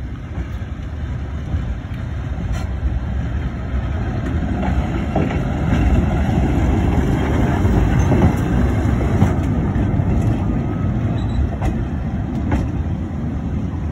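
Sunderland Corporation double-deck electric tram no. 16 passing close by on its rails, a low rumble of wheels and running gear that grows louder to a peak about six to nine seconds in, then eases as it moves away. A few sharp clacks come from the wheels on the track.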